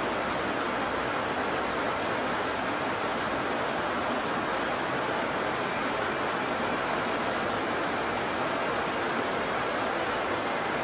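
Heavy rain falling, a steady even hiss with no breaks.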